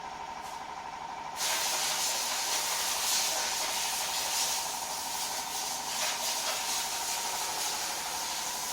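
A steady hum, joined suddenly about a second and a half in by a loud, continuous hiss that keeps going.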